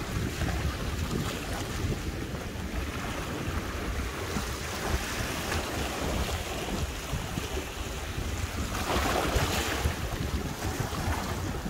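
Wind buffeting the microphone over sea waves washing against shoreline rocks, with a bigger wash of surf about nine seconds in.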